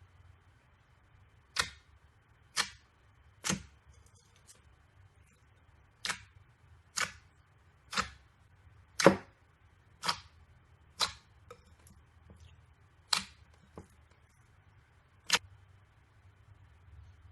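Slime being played with by hand, making a series of sharp, crisp pops about once a second, eleven or so in all, with a pause around 4 to 6 seconds in and the loudest pop near the middle.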